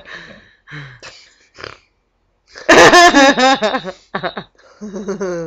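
Girls laughing: a loud, wavering, high-pitched vocal outburst about halfway through, then short choppy laughs and another drawn-out voice sound near the end.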